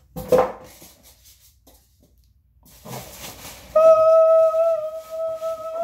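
Styrofoam packing rustling and scraping against the cardboard box as it is worked out. Then comes a steady, high squeak of foam sliding against the box that lasts about two and a half seconds and stops suddenly.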